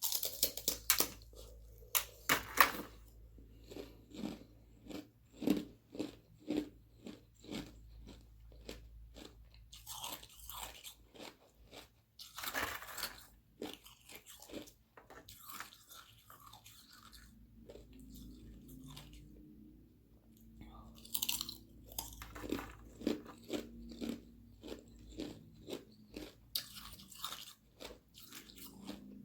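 Sheets of frozen carbonated-water ice being bitten and chewed close to the microphone: sharp, irregular crunches in clusters, easing to quieter chewing for a few seconds in the middle before the crunching picks up again.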